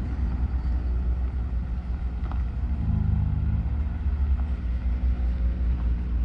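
A car engine running at low speed with a deep, steady rumble, its note swelling briefly about three seconds in as the car creeps along.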